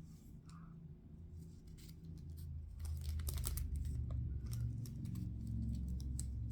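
A parcel being opened by hand: scattered snips, clicks and rustling of packaging, busiest about three seconds in, over a low handling rumble that grows louder partway through.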